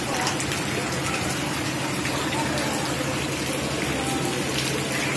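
Steady rush of heavy rain and floodwater, an even noise with faint voices behind it.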